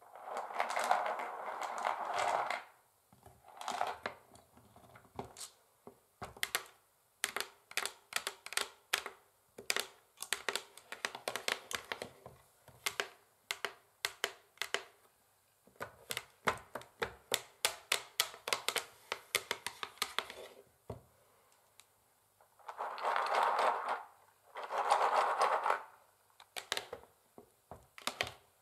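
Long fingernails on a wooden chessboard: runs of rapid clicking taps, with longer stretches of scratching at the start and twice near the end.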